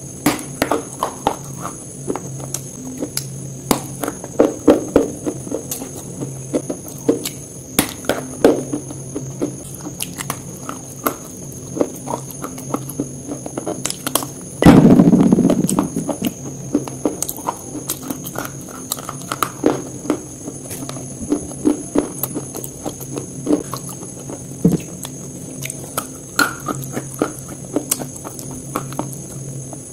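Close-miked biting and chewing of a crisp chocolate-coated KitKat wafer: irregular sharp crunches and crackles throughout, with one much louder crunching burst about halfway through, over a faint low hum.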